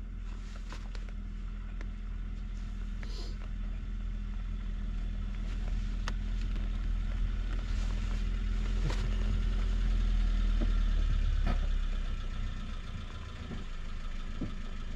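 BMW R1200GS boxer-twin engine running at low speed on a rough dirt track, with scattered sharp clicks and knocks. The engine gets louder about ten seconds in, then eases off as the bike slows.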